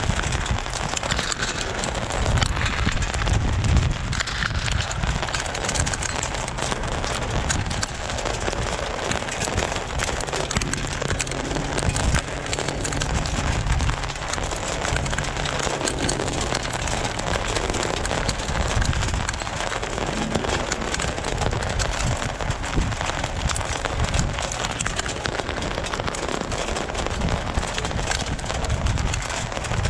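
Jeep driving on a rocky gravel trail: a steady crackle of tyres on loose stone over the low hum of the engine.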